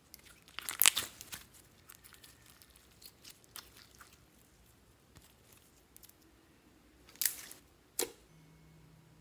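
Fluffy white slime being stretched, folded and pressed by hand into food in a glass dish, giving sticky, crackling squelches. The loudest come about a second in and near the end, with faint small pops between.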